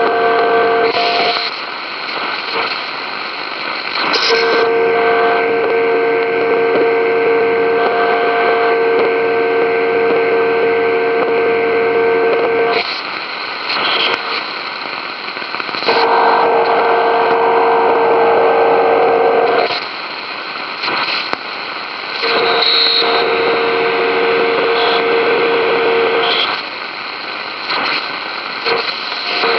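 Shortwave radio receiver playing an unidentified signal through its speaker: a hum of several steady tones over static hiss. The hum switches on and off in blocks of a few seconds at a time, leaving only hiss in the gaps, and in one block it turns into a broader buzz that bends slightly in pitch.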